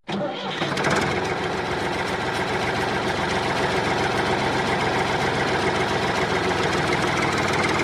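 Steady engine-like motor sound with a fast, even knocking chatter, as of the miniature model tractor running.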